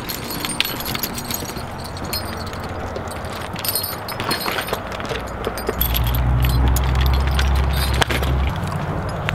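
Metal buckles, rings and hames of a leather draft-horse harness jingling and clinking as the harness is carried and swung onto a horse's back. About six seconds in, a low rumble comes in for a couple of seconds.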